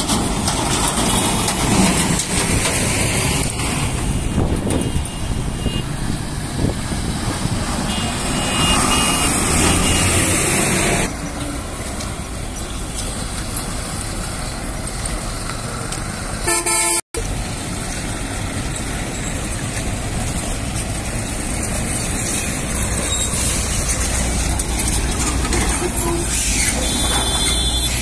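Roadside traffic of heavy diesel goods trucks and smaller vehicles passing, engines running, with horns tooting now and then.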